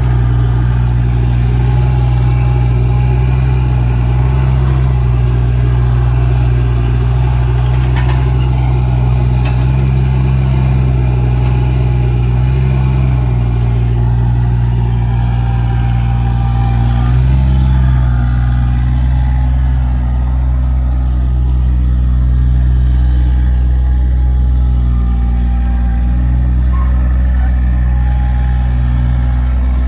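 Volvo EC20E mini excavator's diesel engine running steadily, its note shifting a little about two-thirds of the way through.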